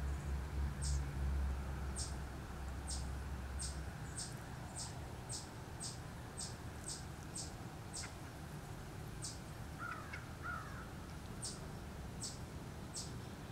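Distant birds calling: a run of short, very high, falling notes about twice a second, with a few pauses, and two faint lower calls about ten seconds in. A low rumble stops about four seconds in.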